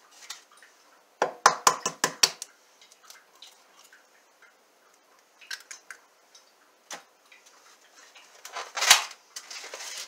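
An egg tapped and cracked against a ceramic bowl, with a quick run of sharp clicks about a second in, a few lighter taps later, and a louder knock near the end.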